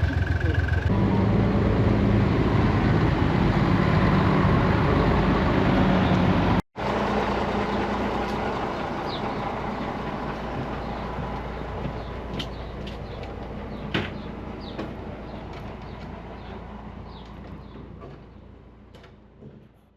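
Pulling tractor's engine running loud and steady, cutting out for an instant about seven seconds in, then slowly fading away, with a few sharp clicks late on.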